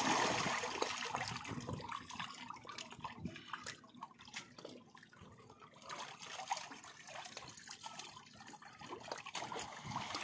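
Water splashing as hands grab at fish crowded in a netted fish cage, the fish thrashing at the surface. Loudest at the start, then smaller splashes and drips, with another flurry about six seconds in.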